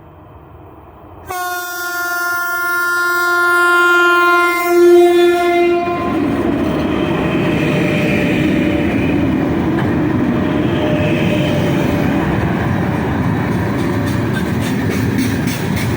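2ES5K 'Ermak' electric locomotive's horn sounding one long steady blast of about five seconds, loudest just before it stops. The freight train then rumbles past with steady wheel and rail noise and rhythmic wheel clicks over rail joints near the end.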